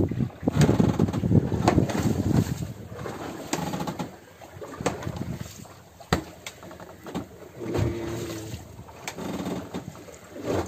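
Scattered knocks and clicks on a small fishing boat, with wind rumbling on the microphone, heaviest in the first few seconds.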